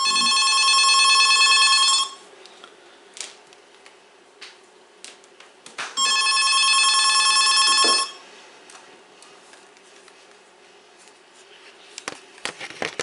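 Electronic ringer of a Lenoxx Sound PH-543 corded trimline telephone ringing for an incoming call: two rings, each about two seconds long, about four seconds apart.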